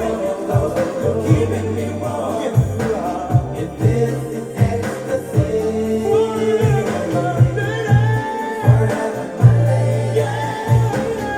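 Music with singing voices over a bass line and a steady beat.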